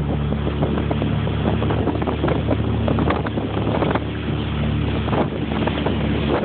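Motorboat engine running at a steady speed, with wind buffeting the microphone.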